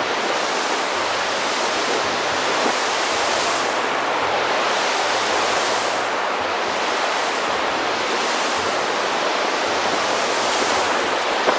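Ocean surf breaking on a beach: a steady wash of noise that swells as a wave breaks every two to three seconds.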